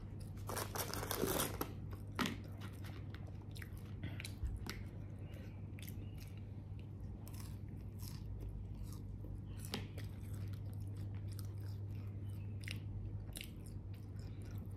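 A person eating fried chicken and French fries close to the microphone: scattered bites, crunches and chewing clicks, with a short rustle about a second in. A steady low hum runs underneath.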